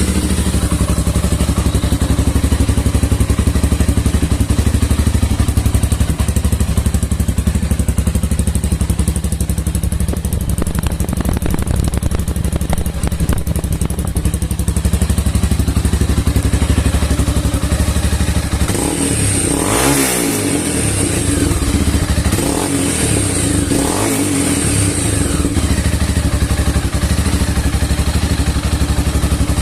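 Honda CB 300R single-cylinder engine idling loud through an aftermarket Fortuna F1 Mini Trioval exhaust. About two-thirds of the way through it is revved in three short throttle blips, then settles back to idle.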